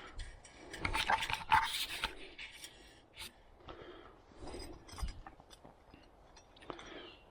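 Hand tools working on the sawmill's metal parts: a scraping, rasping stretch about a second in, then scattered light clicks and taps.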